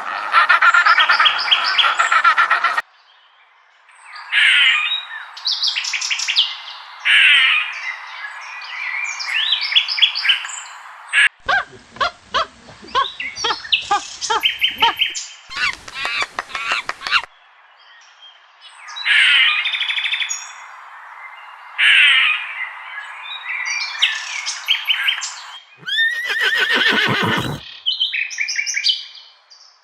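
Birds squawking and chirping in a series of short pulsed calls, coming in bursts a few seconds long with brief pauses between. A louder, deeper call comes near the end.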